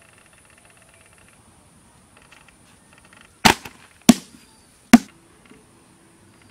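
Three loud, sharp knocks or thuds in quick succession, about half a second to a second apart, starting about three and a half seconds in over a faint outdoor background.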